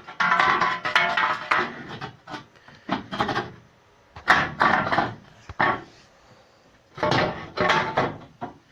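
Repeated bursts of knocking and clattering, about four in all, a second or so each with short pauses between, typical of metal body panels being handled and knocked into place.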